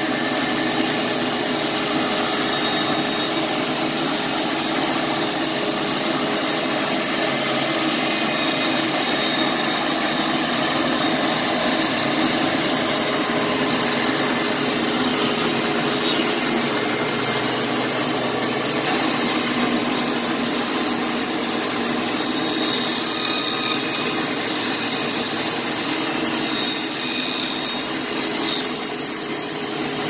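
Horizontal band sawmill running and cutting lengthwise through a log: a steady drone of the machine with the band blade sawing through the wood, dipping briefly near the end.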